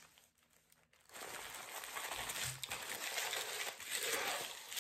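Wrapping crinkling and rustling as it is handled and crumpled, starting about a second in and going on almost to the end.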